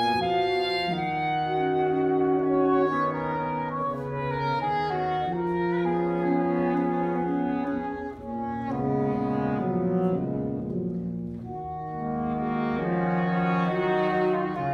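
Saxophone quartet of soprano, alto, tenor and baritone saxophones playing held chords that change every second or two. The sound thins briefly about eight seconds in, then the full chords come back.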